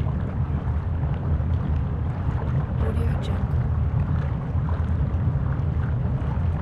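Volcano sound effect: a steady, deep rumble with scattered crackling over it, standing for an erupting volcano and flowing lava.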